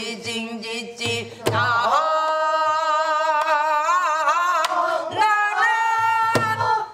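One voice singing long held, wavering notes in Korean folk or pansori style, with a few sharp drum strokes near the start and again near the end.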